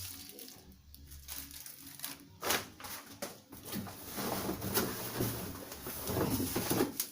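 Plastic packaging crinkling and rustling as ring-light parts are unpacked and handled, starting with a sharp crackle about two and a half seconds in and carrying on as a dense run of crackles and small clicks.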